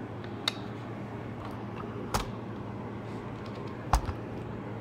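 Three sharp clicks and taps from handling and operating a laptop, the loudest near the end, over a steady low hum.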